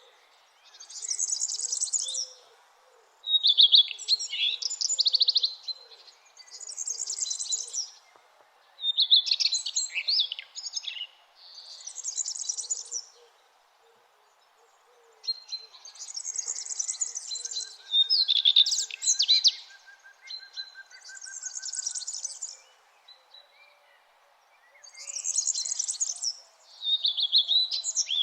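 Songbird singing at dawn: short, high chirped and trilled phrases about a second long, repeated every two seconds or so with brief pauses, over faint steady background noise.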